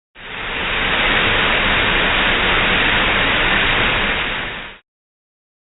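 A loud, steady hiss of noise that cuts in abruptly and stops just as abruptly near the end.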